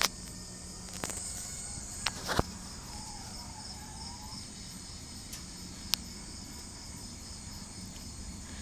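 Crickets chirping steadily in the background, with a few sharp clicks scattered through it.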